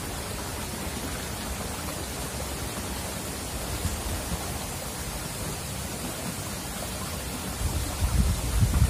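Shallow stream running over rocks: a steady rushing hiss. Near the end a louder, uneven low rumble comes in over it, like wind buffeting or handling on the microphone.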